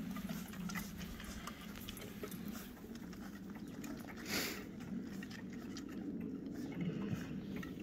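A schnauzer and her puppies scrambling over a wooden play bridge: scattered light taps of paws and claws on the wooden slats. A short rushing burst comes about four and a half seconds in.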